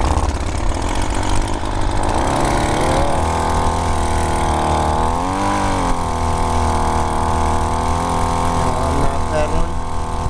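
A 25cc two-stroke weed eater engine on a friction-drive bicycle is bump-started by the roller on the rear tyre. It catches about two seconds in, rises in pitch, wavers briefly, then runs on steadily. Wind rumbles on the microphone.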